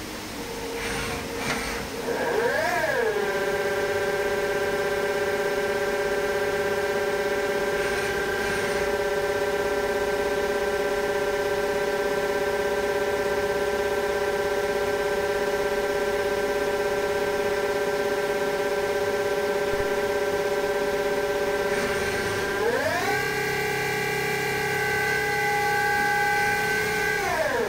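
CNC lathe spindle drive whining as the spindle spins up about two seconds in, overshoots and settles at a steady pitch. Near the end it steps up to a higher speed and pitch, then winds down. A few light mechanical clicks come just before the spin-up.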